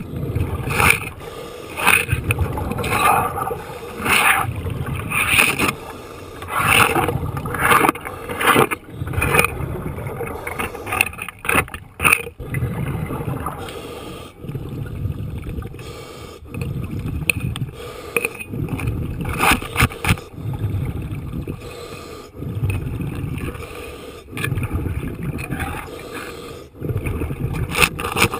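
A scuba diver's regulator breathing underwater, heard from the underwater camera: exhaled bubbles rumble out in repeated bursts over a steady low rush of water.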